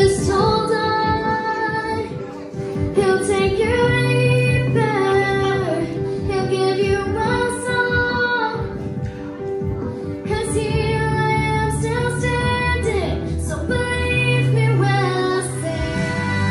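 A young girl singing into a handheld microphone over an instrumental backing track, her voice holding long notes that glide between pitches.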